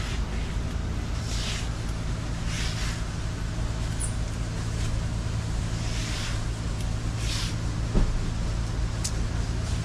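Steady low mechanical hum, with a few short hisses and one sharp knock about eight seconds in.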